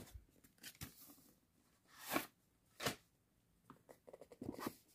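Faint handling noise from a cardboard Blu-ray box set: several short rubbing and scraping scuffs as the box is gripped and tilted, with a quick cluster of them near the end.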